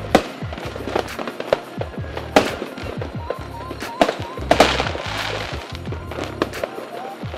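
Fireworks going off in a rapid, irregular series of sharp bangs, the loudest about two and a half and four to four and a half seconds in, followed by a short spell of crackling hiss. Music with a steady low beat plays under it.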